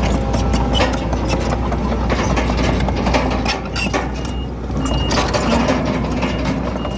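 Bulldozer engine running under steady load with the clatter and clanking of its steel tracks. In the second half a faint reversing alarm beeps a few times.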